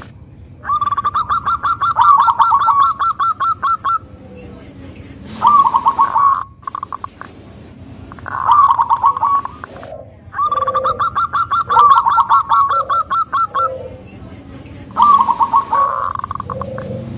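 Zebra dove calling in repeated bouts of rapid, pulsing staccato notes. Two long runs alternate with three short ones, and softer, lower coos come in between them in the second half.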